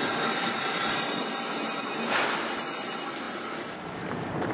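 Commuter train pulling away along the track: a steady, loud hiss of wheels on rail that fades near the end as the last car draws off.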